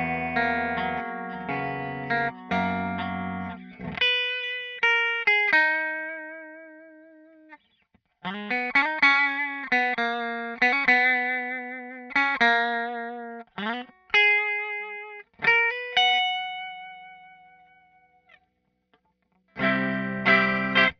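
Sterling JP70D seven-string electric guitar played through a Line 6 POD HD500 amp modeller: distorted chords, then single sustained lead notes with vibrato and short gaps between phrases, a long note dying away, and distorted chords again near the end.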